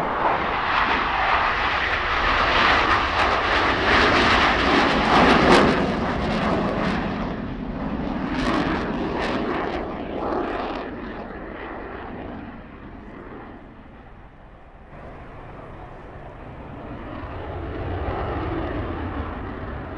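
Blue Angels F/A-18 Hornet jets passing: a loud jet roar that builds, peaks about five seconds in with a falling sweep in pitch as they go by, then fades, swelling again near the end.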